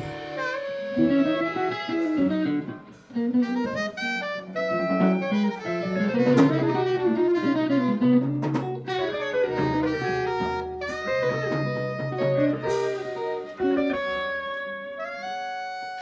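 Instrumental jazz: saxophone and guitar playing quick melodic lines over a walking bass, with light drums.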